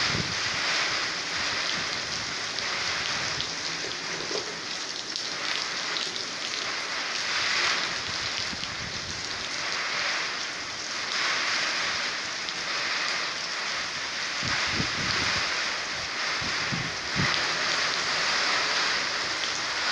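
Heavy rain falling in a squall-line thunderstorm: a steady hiss that swells and eases with the gusts. A few low buffets of wind hit the microphone about three-quarters of the way through.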